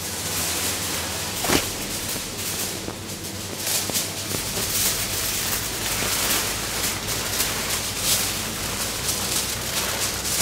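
Packaging crinkling and rustling as the ingredient packages are opened: a dense crackle of many small sharp clicks.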